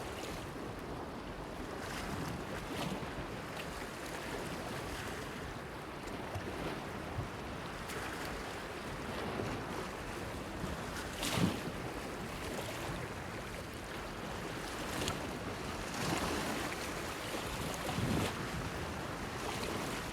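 Small waves washing and splashing against a breakwater pier, a steady wash broken by splashes every few seconds, the loudest about eleven seconds in. Some wind is on the microphone.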